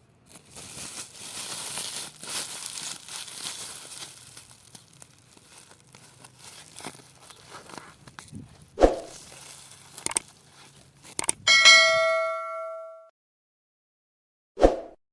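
Several seconds of rustling, crackling noise with a few sharp knocks, then a single bell-like ding that rings out and fades over about a second and a half, followed by one short thump.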